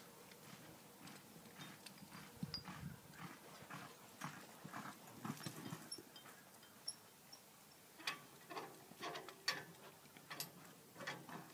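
Hoofbeats of a two-year-old cow horse loping on soft arena dirt, a faint uneven run of thuds that grows louder over the last few seconds as the horse comes closer.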